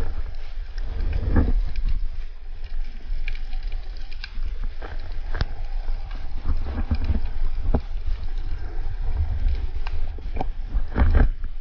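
Underwater sound picked up by a diver's camera: a steady low rumble of water against the housing, with scattered sharp clicks and knocks, the loudest cluster near the end.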